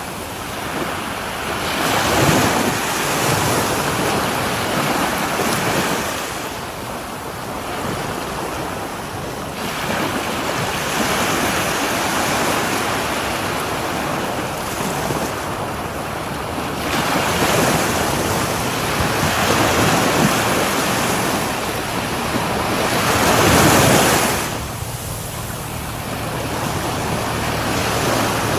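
Ocean waves breaking on a shore: surf washing in and drawing back in slow swells, with one loud breaker about 24 seconds in.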